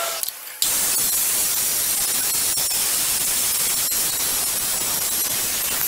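Circular saw on a guide rail ripping a wooden board: a steady, even cutting noise that starts abruptly about half a second in, after a brief quieter moment.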